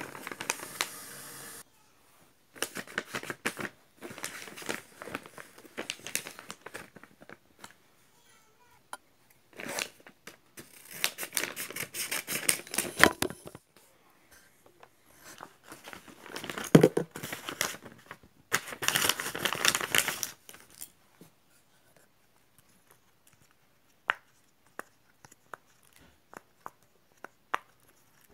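Homemade paper blind bag being torn open and crumpled by hand, in several irregular bursts of ripping and crinkling paper, loudest about halfway through and again near the two-thirds mark. After that it goes mostly quiet apart from a few isolated clicks.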